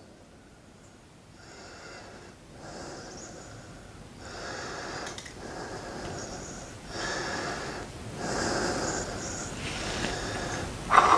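A man's heavy breathing through the nose, close to the microphone: a breath about every second, getting louder as it goes, with a sharp sniff near the end.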